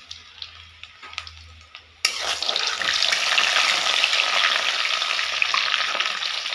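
Food deep-frying in hot oil in an iron karahi: faint clicks at first, then about two seconds in a loud, steady sizzle with dense crackling sets in suddenly as the food is turned with a spatula.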